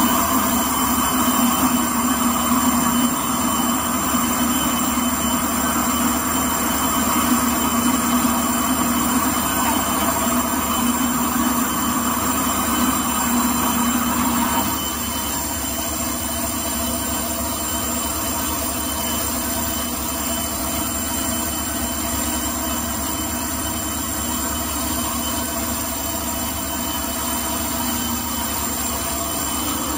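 Automatic kitchen-towel rewinding and edge-embossing machine running at steady speed: a steady mechanical hum with high, steady whining tones. About halfway through it turns quieter and the lower hum eases off.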